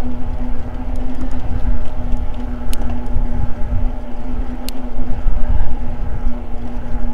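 E-bike's electric drive motor whining at a steady pitch while cruising, under a loud, gusting rumble of wind on the microphone and tyres rolling on pavement. Two brief sharp ticks come through in the middle.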